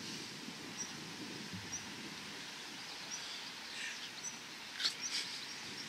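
Faint outdoor ambience: a low steady background noise with a few short, high bird chirps spread through it, and a couple of faint rustles near the end.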